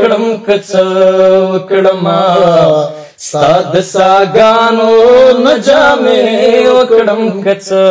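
A man singing a Pashto ghazal, drawing out long wavering notes without words, with a short breath break about three seconds in.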